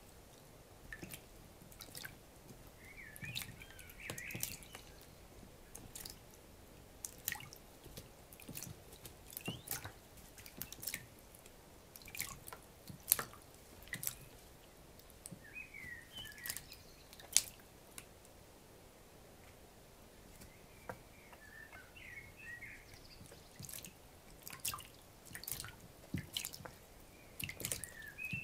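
Young Eurasian coot bathing in a shallow plastic tray of water, splashing and flicking water in irregular bursts. Now and then a chick gives short high peeping calls.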